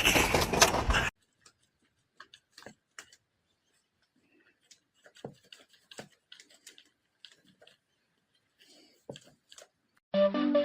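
Faint, scattered clicks and light taps in a quiet room, irregularly spaced. A loud sound cuts off abruptly about a second in, and music begins near the end.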